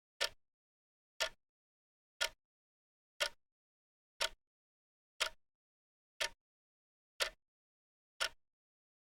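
Clock ticking: single sharp ticks, evenly spaced about one a second, with silence between them.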